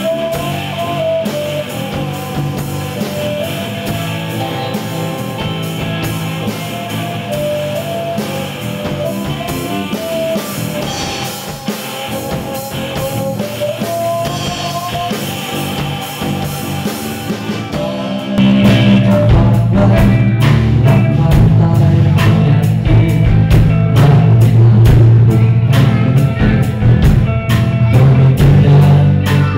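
Live rock band playing: electric guitars, bass, violin and drum kit. About eighteen seconds in, the full band comes in suddenly louder and heavier, with dense drumming.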